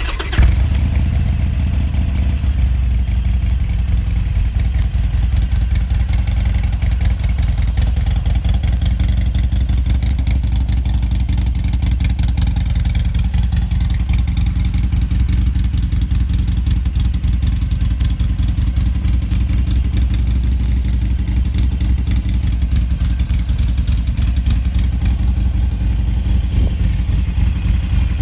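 2013 Harley-Davidson Iron 883's air-cooled 883cc V-twin with a D&D aftermarket exhaust, running at idle. It is briefly louder in the first second, then settles into a steady idle.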